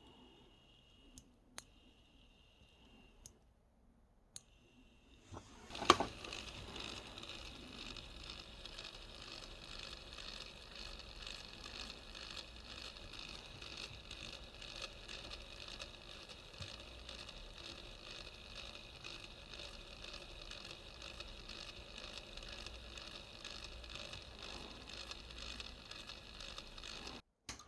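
Bathroom exhaust fan switched on with a sharp click, then running steadily with an even whooshing airflow for about twenty seconds before cutting off suddenly near the end. A few faint clicks come before it starts.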